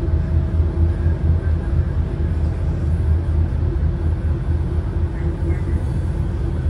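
Alicante tram running along the line, heard from inside the carriage: a steady low rumble with a faint even hum over it.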